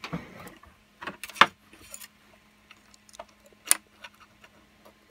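Light clicks and knocks of 3D-printed plastic parts as a small charge-port latch lever is pushed and slotted into place by hand. The loudest knock comes about a second and a half in, with a few scattered clicks after it.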